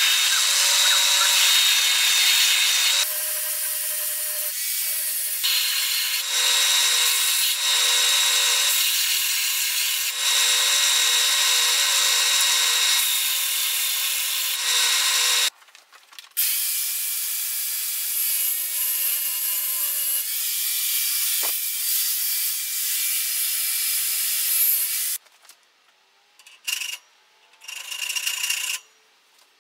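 Small benchtop belt sander grinding a steel leaf-spring knife blank: a steady, loud grinding hiss that shifts every few seconds as the blade is pressed and lifted. It cuts off abruptly about halfway through, starts again a second later, and near the end gives way to a few short scraping bursts with quiet gaps between them.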